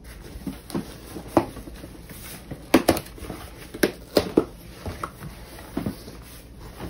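Cardboard shipping box being opened by hand: a series of short scrapes, taps and rustles as the flaps are pulled back, loudest about three and four seconds in.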